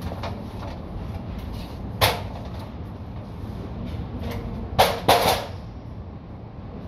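Aluminium stepladder knocking and clattering as it is climbed off and moved: one sharp knock about two seconds in, then two louder clanks close together about five seconds in, over a steady low background rumble.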